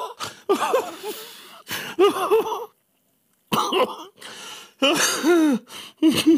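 Uncontrollable wheezing laughter from men trying to stifle it: repeated bursts of pitched 'ha' sounds with breathy gasps between them, and a brief pause in the middle before the laughing starts up again.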